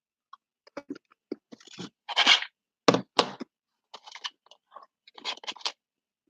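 Someone eating candy close to the microphone: a string of crunches and crackles, loudest about two and three seconds in.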